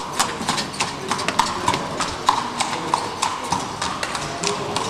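Horse's hooves clip-clopping on hard ground as it pulls a carriage, a sharp, even clop about three times a second.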